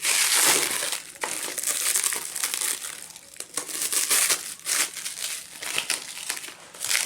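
Plastic packaging crinkling and rustling as an action-camera mount is handled and unwrapped, with irregular small clicks and crackles.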